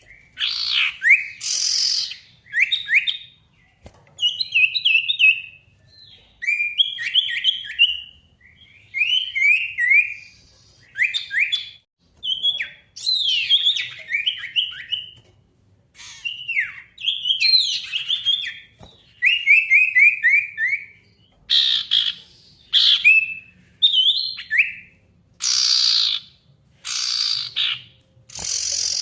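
Male sirtu singing hard, a challenge song calling a rival: short phrases of quick down-slurred whistled notes repeated every second or two, with louder, harsher bursts in the last several seconds.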